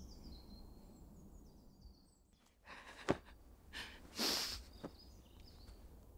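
Quiet woodland ambience with faint birdsong, broken by a person breathing in sharply twice, about three and about four seconds in.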